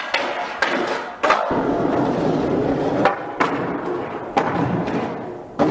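Skateboard wheels rolling on hard pavement, broken by about seven sharp clacks of the board hitting the ground.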